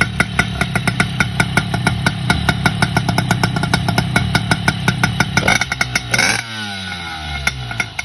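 Malossi-kitted Peugeot 105 moped's two-stroke engine idling with sharp regular pops, about five or six a second. About five and a half seconds in, the throttle is blipped in a short rev burst, and the revs then fall away.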